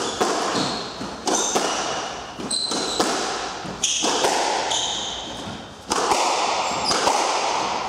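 Squash rally: the ball cracks off rackets and the court walls in sharp knocks about a second apart, with sneakers squeaking on the wooden floor. The rally ends about halfway through.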